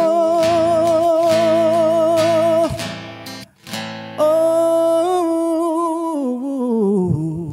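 A man sings a long held note with vibrato over an acoustic guitar. The voice breaks off briefly about three seconds in, then takes up another held note that slides down in pitch near the end.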